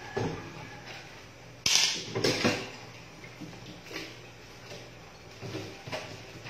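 Dishes being washed by hand at a stainless steel sink: irregular knocks, scrapes and clinks of plates and utensils, the loudest cluster about two seconds in.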